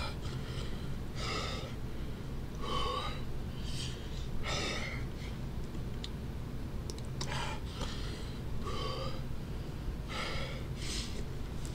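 A man breathing sharply and hard through his mouth, about ten hissing gasps with a pause midway, panting from the burn of a Carolina Reaper–filled candy bar. A steady low hum lies underneath.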